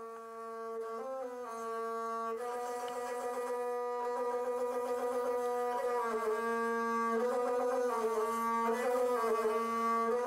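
Gusle, the single-string bowed folk instrument, playing a sustained, ornamented melody that stays within a narrow range of pitch, with a nasal, reedy tone. It swells in over the first couple of seconds and then holds steady.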